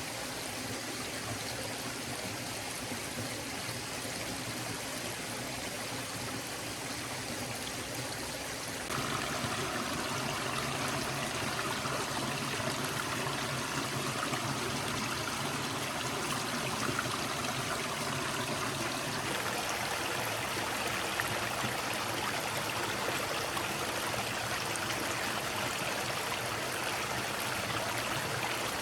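A stream flowing steadily. The rushing sound jumps suddenly louder and brighter about a third of the way in, and its tone shifts again about two-thirds through.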